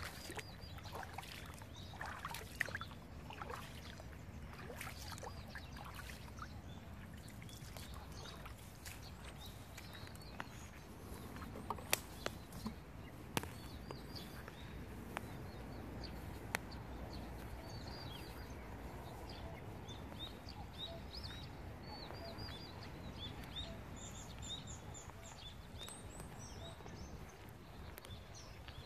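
Outdoor ambience with a steady low wind rumble. Small birds chirp in quick runs through the second half, and a few sharp clicks come near the middle.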